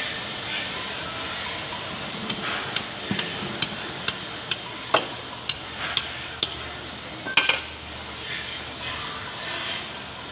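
A screwdriver clicking and tapping against metal in an Iseki tractor's front axle gear housing: about a dozen sharp metallic clicks, roughly two a second, starting about two seconds in, with a steady background hiss.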